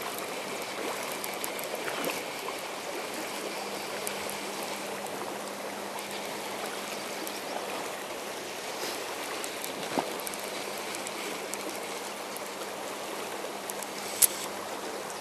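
Shallow river water running steadily over a rocky riffle, with two sharp clicks, one about ten seconds in and a louder one near the end.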